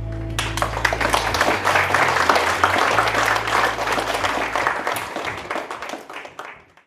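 Concert audience applauding at the end of a song, while the last chord of the band's guitars and bass rings out underneath. The clapping fades away just before the end.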